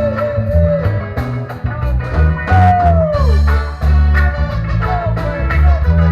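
Reggae band playing an instrumental passage: a heavy bass line and drums on a steady beat, with a lead melody that slides in pitch, falling away about two and a half seconds in.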